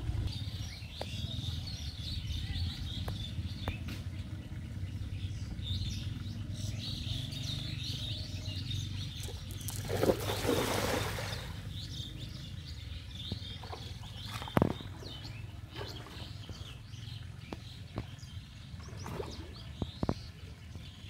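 A cast net splashing down onto a pond about halfway through, a brief rushing splash. Birds chirp throughout over a steady low rumble, and a sharp knock and a few smaller splashes follow as the net's rope is held in the shallows.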